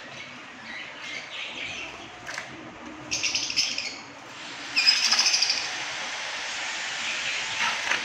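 Caged budgerigars chirping and chattering, with rapid bursts of chatter about three seconds in and again, loudest, about five seconds in.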